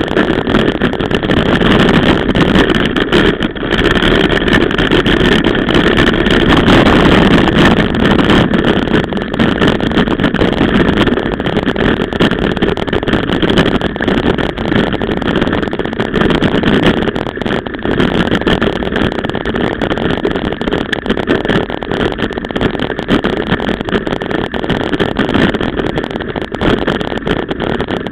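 A mountain bike riding fast over a rough dirt trail, heard from a camera mounted on the bike: a steady rush of wind and tyre noise on the microphone, with constant small rattles and knocks from the bike.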